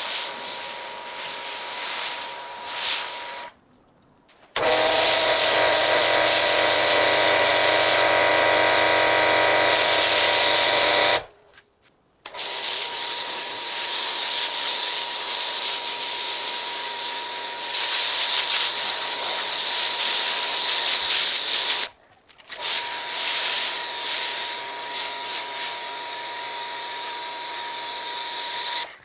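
Kranzle pressure washer spraying snow foam through a foam cannon: a steady hiss of spray with a thin steady tone under it. From about four and a half seconds in, a louder stretch of several seconds brings in a low hum and many steady tones. The sound breaks off in short silent gaps three times.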